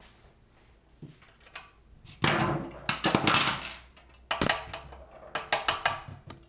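Metal clattering and scraping on a Honda-clone small engine's open crankcase, starting about two seconds in, followed by a quick run of sharp metal knocks as a long bolt is worked against the governor arm to drive it out.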